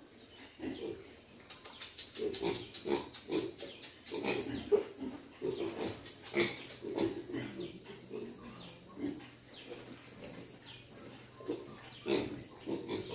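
A group of weaned piglets grunting: many short low grunts from several animals, busiest in the middle and again near the end. A steady thin high whine runs under them.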